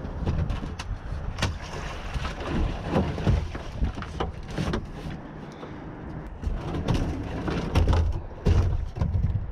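Plastic kayak being tipped on its side and handled on gravel to empty out water collected during the day: repeated knocks and scrapes of the hull over a low rumble from handling of the boat-mounted camera.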